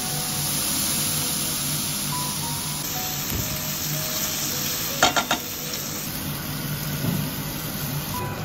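Food sizzling and frying in a pan, with a steady hiss. A quick run of three or four knocks comes about five seconds in.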